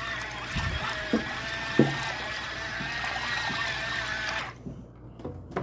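Small portable washing machine running in water: a steady motor hum under churning, trickling water, with a few light knocks. It cuts off suddenly about four and a half seconds in.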